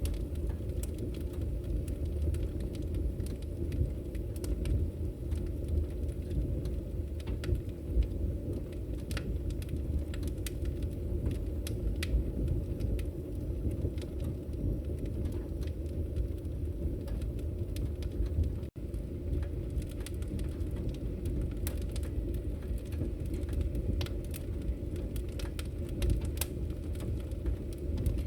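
Firewood burning: a steady low rumble of the fire with frequent sharp crackles and pops. The sound cuts out for an instant about two-thirds of the way through.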